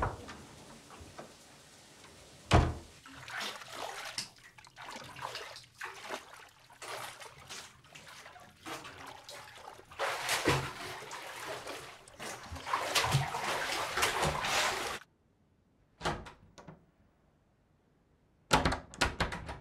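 Bathwater splashing and trickling in a tiled bathtub as a child moves in it, after a thump a couple of seconds in; the water sound cuts off suddenly. Then, in near silence, a few short clicks and knocks of a door's lever handle and lock.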